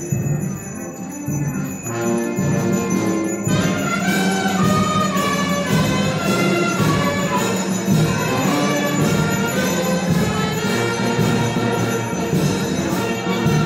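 Orchestral music, swelling fuller a few seconds in.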